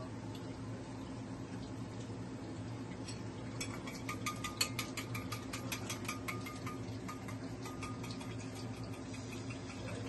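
Chopsticks beating eggs in a stainless steel bowl: a fast, even clicking of the sticks against the metal, about six or seven strokes a second, which starts about three and a half seconds in and lasts about four seconds. A steady low hum runs underneath.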